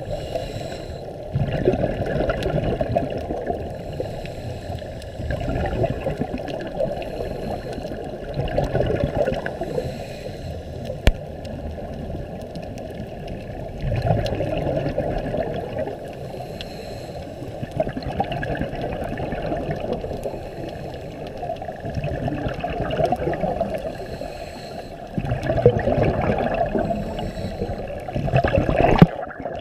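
Underwater bubbling and gurgling from a scuba diver's regulator, with a burst of exhaled bubbles every three to four seconds.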